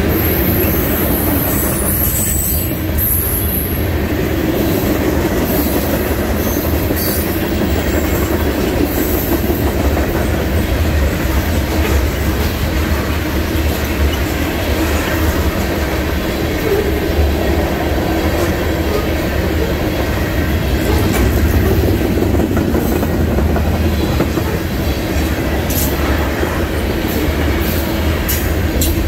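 Freight cars of an Iowa Interstate mixed freight train rolling past close by: a steady, loud rumble and clatter of steel wheels on rail.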